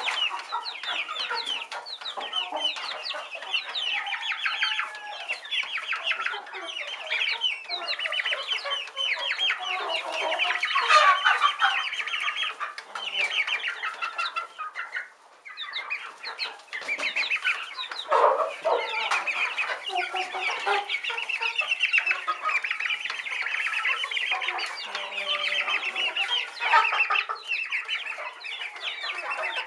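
A flock of young chickens calling all together, many short overlapping calls, with a brief lull about halfway through.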